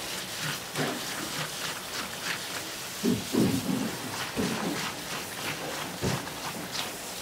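Tap water running and splashing onto a plastic mesh basket while gloved hands rub and rinse chopped seafood in it, with a few dull bumps about halfway through.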